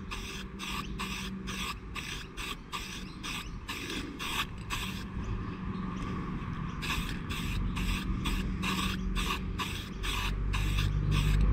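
Aerosol spray can of grey primer hissing in short, quick bursts, about three a second, with a brief pause partway through, as a light undercoat is sprayed on.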